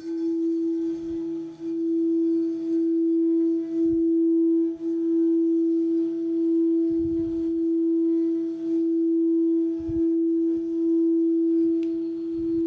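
Frosted crystal singing bowl tuned to F, sung by rubbing its rim with a suede-covered mallet: one steady, sustained tone with a slow, gentle pulse in its loudness.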